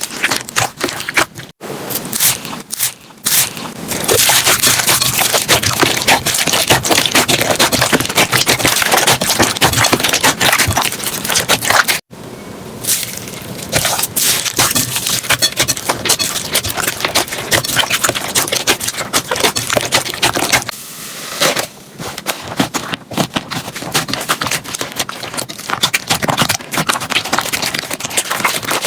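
Slime being squeezed, pressed and poked by hand, with dense crackling and crunching. It cuts off abruptly about a second and a half in and again about twelve seconds in, as one clip gives way to the next.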